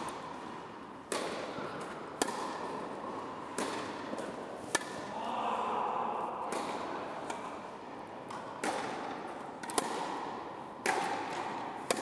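Tennis ball struck by rackets and bouncing on the court during a baseline rally: sharp pops about once a second, each with a short echo from the hall.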